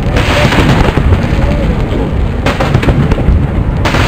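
Aerial firework shells bursting in a continuous loud rumble of booms. Three sharp bangs stand out: one at the start, one about two and a half seconds in, and one near the end.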